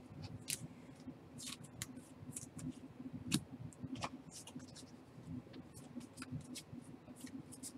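Baseball cards being handled and flipped through one by one: irregular soft swishes and light ticks of card stock sliding and being set down, over a faint steady hum.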